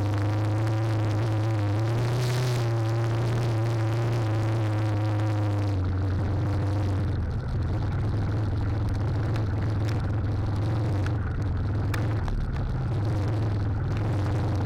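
Trail motorcycle engine running steadily at low revs, its pitch shifting slightly now and then; the higher notes of the engine fade about seven seconds in, leaving a steady low hum.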